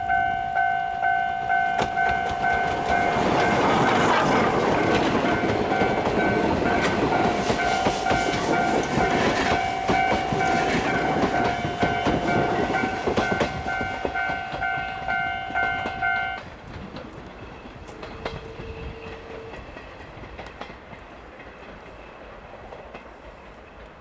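Japanese level-crossing warning bell ringing in a steady pulsing clang while a steam train hauled by C11 190, a tank locomotive, rolls over the crossing, its wheels clacking over the rail joints. The bell cuts off suddenly about two-thirds of the way through, and the train's rumble fades away.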